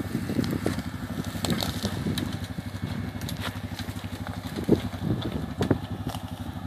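Yamaha Rhino side-by-side's single-cylinder engine running slowly as it creeps down a steep bank into the water, with scattered sharp clicks and snaps.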